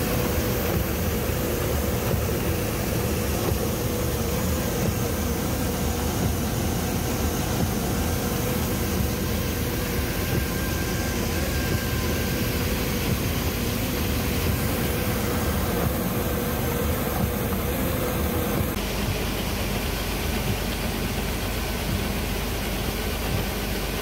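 Tractor engine and PTO-driven grain auger running steadily while shelled corn is unloaded from a semi-trailer into the auger hopper, with a steady whine over the mechanical drone. The sound shifts slightly a little before the end.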